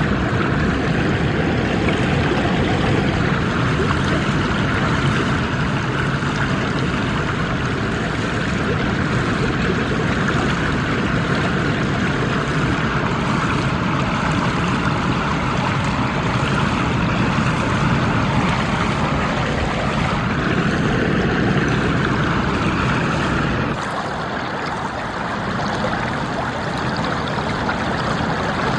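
Small stream babbling and bubbling over stones in a steady rush of flowing water. About 24 seconds in the deep, low part of the flow drops away and it becomes a little quieter and lighter.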